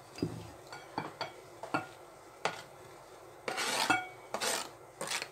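Kitchen knife scraping chopped green onion off a plastic cutting board into a glass bowl. A few short taps and scrapes come first, then longer scraping strokes in the second half.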